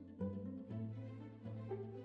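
Background music of string instruments over a low bass line, moving in steady notes about every half second.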